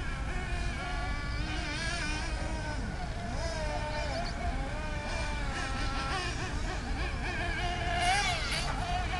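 Engines of radio-controlled off-road cars buzzing at a high pitch, several at once, rising and falling in pitch as they speed up and slow down around the track.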